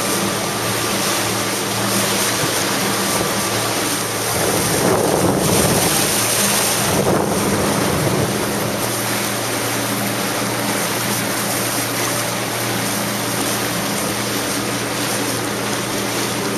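Jet ski engine running with a steady low hum, under constant wind and water noise. A louder rush of wind and water comes about four and a half to eight seconds in.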